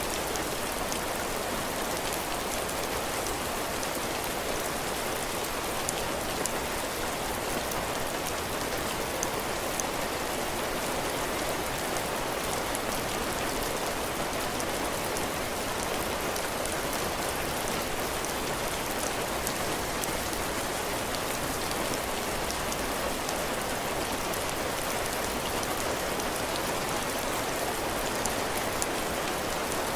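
Steady heavy rain falling on a cabin porch, drops pattering on the roof and ground, with fine drop ticks scattered through the hiss.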